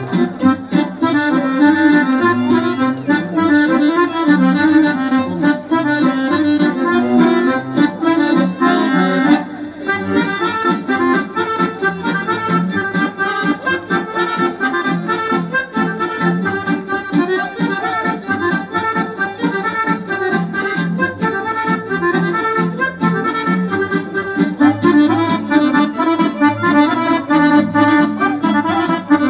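Accordion-led Serbian folk dance music for a kolo, with a quick, even beat and a brief break about nine seconds in.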